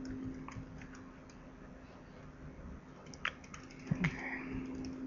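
Typing on a computer keyboard: faint, irregular key clicks, a couple of them louder a little past three seconds in.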